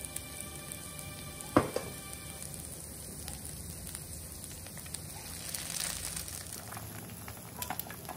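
Cooking oil heating in a nonstick frying pan, sizzling and crackling steadily, with one sharp knock about a second and a half in. Near the end, eggs poured into the hot oil set off a few louder spits and pops.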